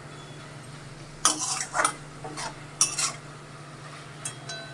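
Metal spatula stirring and scraping grated ash gourd and coconut around an aluminium kadai: a handful of short scrapes in the middle, then a few light clicks near the end, over a steady low hum.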